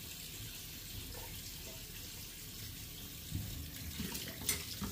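Water running from a tap into a sink, with a few knocks and a sharp clink near the end.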